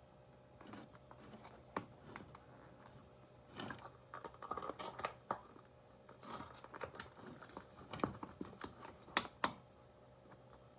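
Faint handling noise as a rubber balloon is worked over the mouth of a glass mead bottle for an airlock: scattered light clicks, rubbing and crinkling, busiest in two stretches, with a couple of sharper clicks near the end.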